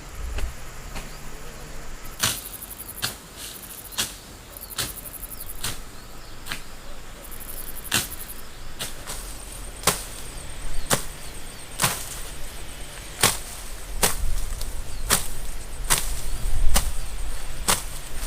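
A steady series of sharp strikes, about one a second, like a hand tool hitting something over and over, with short bursts of a high buzz between them.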